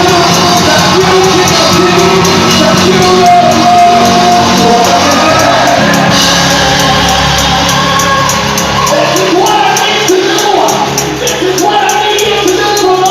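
Live gospel worship music in a large hall: a band plays with a steady beat, singers sing, and voices shout and whoop over it.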